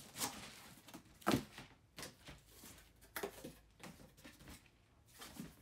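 A sneaker box and its packing paper being handled by hand: a few separate rustles and knocks, the loudest about a second in.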